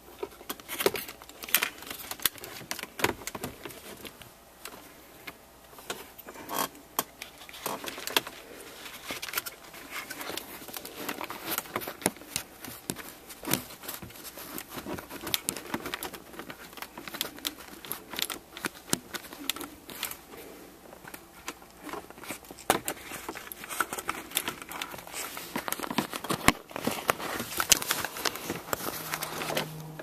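Irregular plastic clicks, snaps and crinkling of a 2004 Volvo XC90's gear shifter boot and console trim being pried and worked loose by hand, the sharpest snaps near the middle and toward the end.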